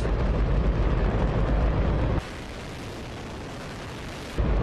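Hydrogen-oxygen rocket engine firing on a test stand: a very loud, steady rushing noise with a heavy low rumble. About two seconds in it turns quieter and thinner, losing the rumble, and the full rumble comes back near the end.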